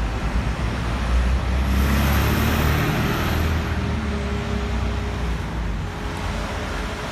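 A double-decker bus's diesel engine running close by, a low rumble that is strongest for the first five seconds and then eases. A swell of hiss rises and falls around two to three seconds in.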